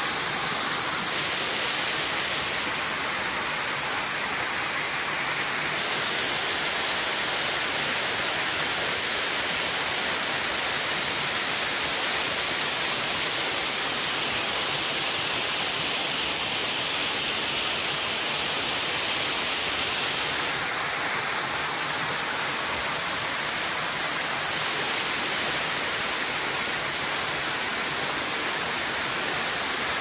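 Waterfall pouring down rock into a pool: a steady rush of falling water, its brightness shifting a few times.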